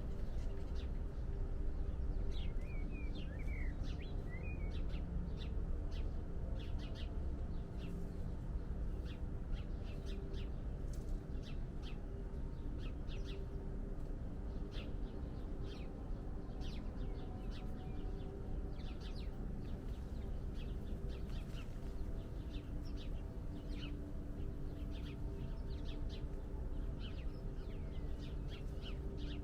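Wild birds chirping: many short, high chirps scattered throughout, with a few quick gliding notes a few seconds in, over a steady low background rumble and hum.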